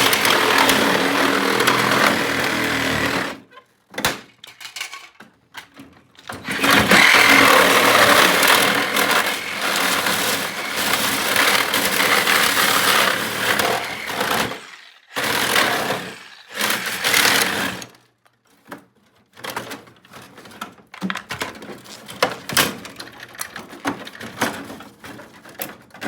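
A handheld power tool running in several bursts of a few seconds each, starting and stopping, on the casing of a floor air conditioner being taken apart. In the last several seconds it gives way to scattered knocks and clicks of parts being handled.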